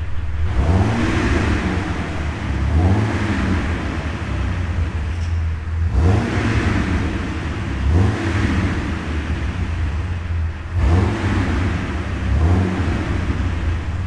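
Jeep Wrangler TJ's 4.0-litre inline-six idling while the clutch pedal is worked in and out. About six times a faint whistling "woo" swells and fades with the clutch out, near the newly replaced throwout bearing; the owner is unsure whether this is normal for a new bearing.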